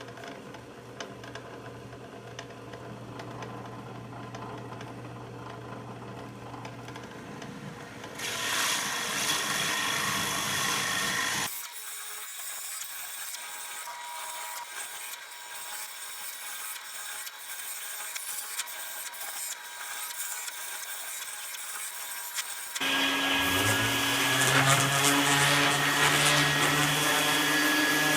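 Workshop power tools heard in several abruptly cut segments. Near the end a motor spins up and then runs steadily and loudly.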